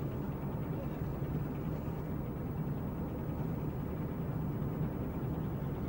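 Steady low mechanical drone of a ship's running machinery: an even hum over a low rumble.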